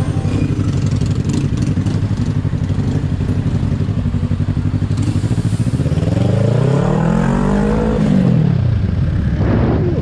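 Yamaha motorcycle engine running under the rider, heard from a helmet camera. About six seconds in it revs up as the bike accelerates, then the pitch drops away near eight and a half seconds.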